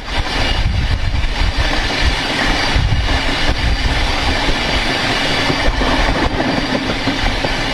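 Train wheel rolling on the rail at speed, heard close up beside the wheel: a loud, steady rumble of wheel-on-rail running noise.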